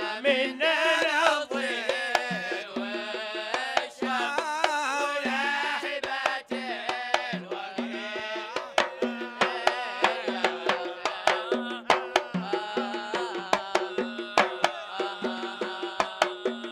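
A man singing a Hadhrami zarbadi song over small double-headed hand drums beating a quick, steady rhythm, with a low drum note recurring under the strikes.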